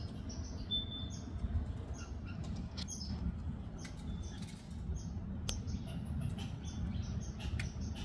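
A squirrel working close to the microphone: a scatter of small, irregular crackly clicks and scratches over a low steady outdoor rumble. A brief high bird chirp comes about a second in.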